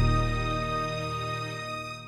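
Soft, sustained intro music fading out.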